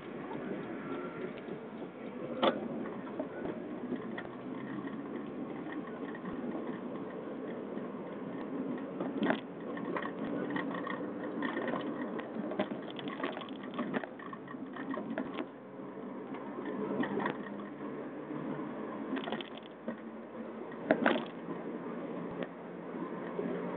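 A car's engine and road noise heard from inside the moving cabin, steady throughout, with a few short knocks and rattles; the loudest comes near the end.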